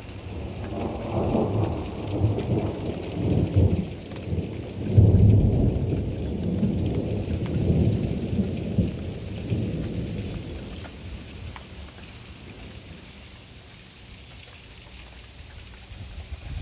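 Thunder rumbling, loudest about five seconds in and dying away after about ten seconds, over a steady hiss of rain.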